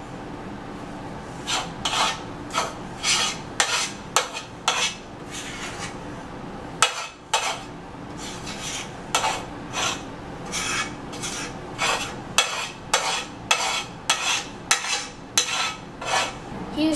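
A kitchen utensil scraping sticky pizza dough out of one container and into a baking pan, in repeated rasping strokes about two a second, with a short pause partway through.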